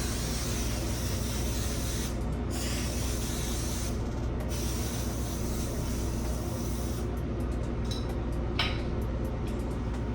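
Hair dryer blowing a steady hiss of air to dry lace-wig glue along the hairline; the air noise drops out briefly twice and thins out near the end.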